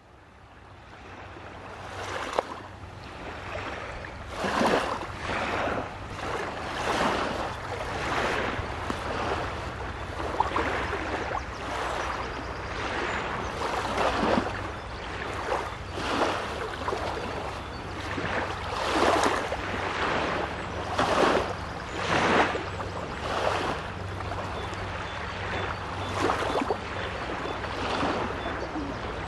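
Small waves of the Baltic Sea washing onto the beach, one wash every second or two, over a steady low rumble; the sound fades in over the first few seconds.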